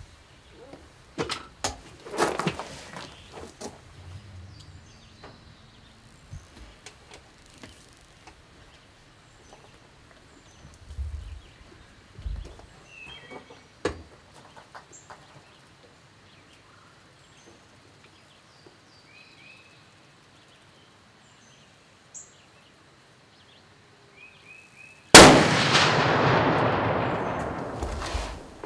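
A single shot from a high-powered muzzleloading rifle, firing a 350-grain bullet at about 3,800 feet per second. It comes near the end, sudden and very loud, and its echo rolls away over about three seconds. Before it there are only a few faint clicks and knocks and some short bird chirps.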